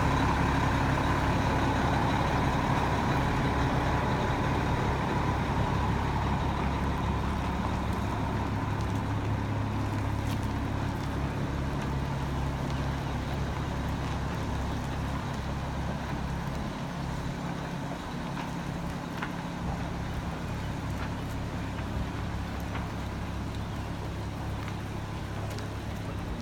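Engine of a heavy towing vehicle running steadily as it hauls a trailer carrying a catamaran, growing slowly quieter as the rig moves off.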